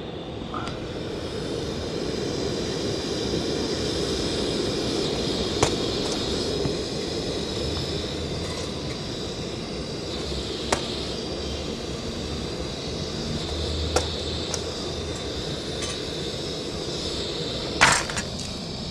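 Small portable LPG cylinder-top gas burner hissing steadily as rotis are cooked on it, with a few sharp metal clinks of utensils spread through.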